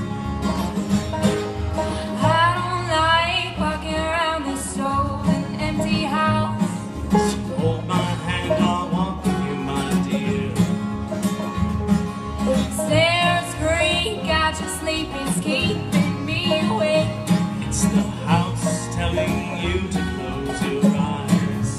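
Acoustic bluegrass band playing an instrumental passage: strummed acoustic guitar, upright bass and banjo, with a melody line that slides in pitch.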